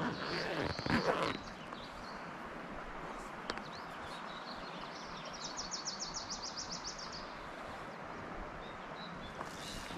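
Steady rush of a small mountain creek, with a brief rustle in the first second or so and a rapid high trill of about a dozen notes just past the middle.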